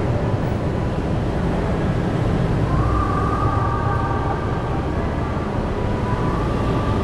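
Steady low rumble of an underground parking garage, with engines and ventilation blending together. A steady high whine joins about three seconds in.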